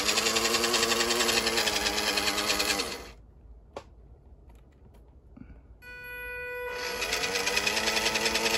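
Stock motor and gearbox of a WPL C74 1/10 RC crawler running at its slowest throttle, a rattly whirring with a steady high whine. It stops after about three seconds. A click follows, then the whine sounds alone for about a second before the whirring starts again. The stock electronics make it noisy.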